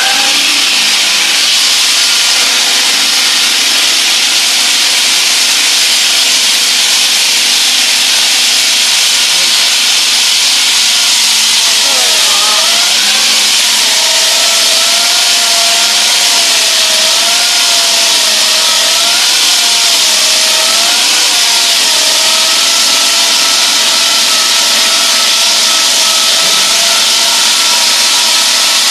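Hydraulic wall saw's diamond blade cutting reinforced concrete: a loud, steady grinding hiss with a whine running through it. From about twelve seconds in, the whine wavers up and down in pitch.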